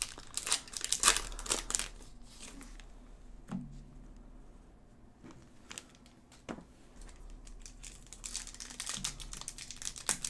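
Plastic wrappers of Topps Chrome trading-card packs crinkling and tearing as they are ripped open by hand. The middle is quieter, with a couple of soft taps, before the crinkling and tearing pick up again near the end.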